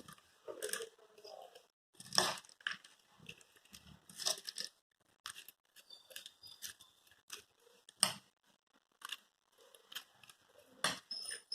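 Irregular short crackles and rustles, loudest at a few separate moments: dry, crunchy namkeen snack mix being sprinkled by hand into a bowl of sprout salad.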